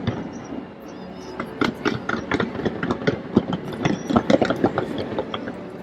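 Fireworks going off in rapid, irregular bangs and crackles, several a second.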